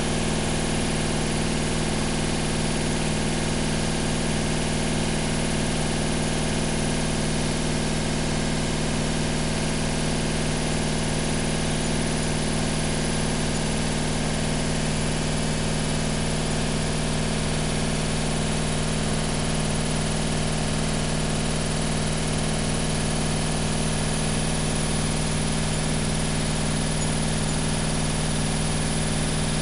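Washing machine running: a steady, unchanging motor hum with an even hiss above it.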